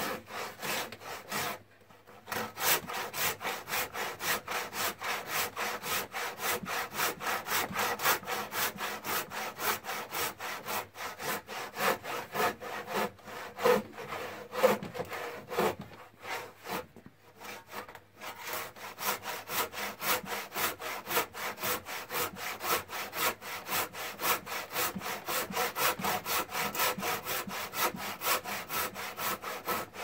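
Handsaw cutting across a rough-sawn wooden timber in fast, even back-and-forth strokes, about three to four a second. There are short pauses about two seconds in and around seventeen seconds.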